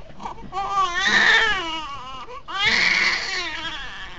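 Newborn baby crying in two long, wavering wails, the first starting about half a second in and the second at about two and a half seconds.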